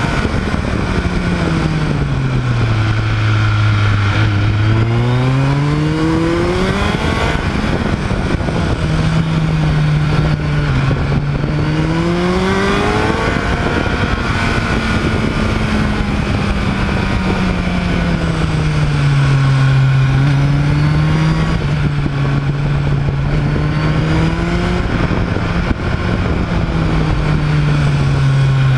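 A vehicle engine driven hard along a twisting road: the revs drop off and then climb again several times, with a short break in the note about 7 and 13 seconds in, as at a gear change. Steady wind rush runs underneath.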